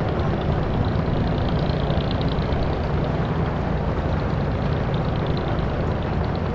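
A steady, low mechanical rumble like a running engine, unchanging throughout.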